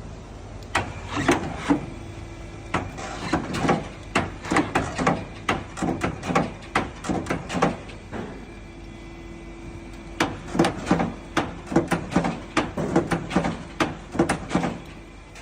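Subaru chassis clunking: rapid knocks, several a second, in three runs with short pauses between them. The shop traces the noise to shifted suspension mounts and worn ball joints.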